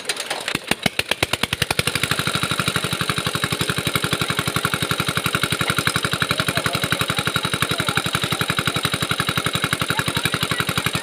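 A small engine is started: its beats come quickly faster over the first two seconds, then it runs at a steady speed.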